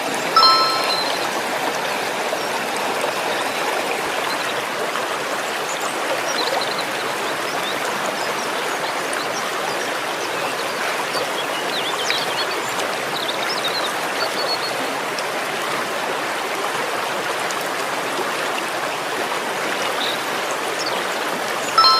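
Shallow stream water running steadily, with a short chime-like tone about half a second in and the same tone again near the end.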